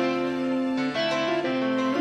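Background music: an instrumental track of held, pitched notes that change every half second or so.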